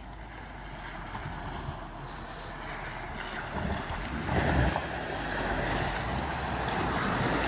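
A four-wheel drive pushing through a muddy water hole: water sloshing and splashing around the vehicle over the low engine rumble, growing louder about four seconds in.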